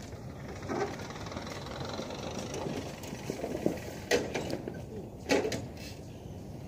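Two loud knocks about a second apart, over a low steady outdoor background.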